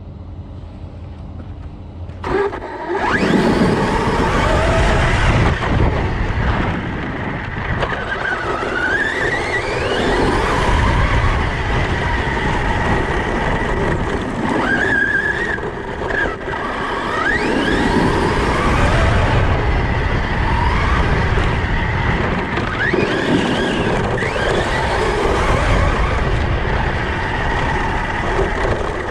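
Large electric RC car driving hard on dirt, its brushless motor whining up and down in pitch as it accelerates and slows, over rough tyre, gravel and wind noise from an onboard camera. The sound starts up loud about two and a half seconds in.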